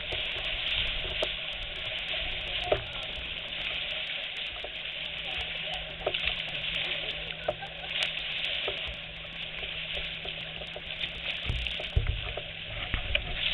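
Lake water splashing and lapping against a kayak hull close to the microphone as the kayaks are paddled: a dense crackling hiss with scattered small splashes and knocks.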